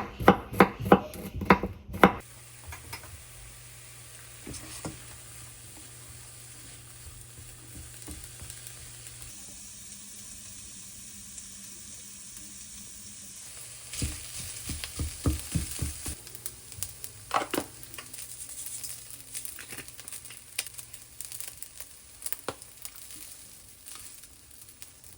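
A knife chopping on a cutting board, a few quick strokes in the first two seconds, then food sizzling steadily in a frying pan. From about halfway, a utensil stirring and knocking in the pan is added to the sizzle.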